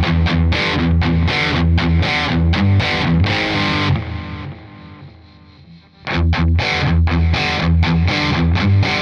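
Distorted electric guitar heard through a Kemper Profiler amp profile, playing a rhythmic riff of short, chopped chords. About four seconds in the riff stops and the last chord rings out and fades. The riff starts again about six seconds in.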